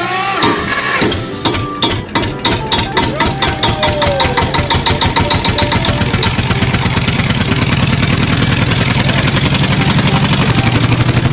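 Engine starting and running: a run of pulses that speeds up steadily, like an engine catching and revving up to a fast, even rattle.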